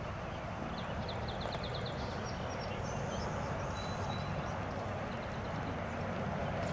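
Hoofbeats of a Missouri Fox Trotter stallion gaiting on arena dirt over a steady outdoor background noise, with a short high trill of chirps about a second in.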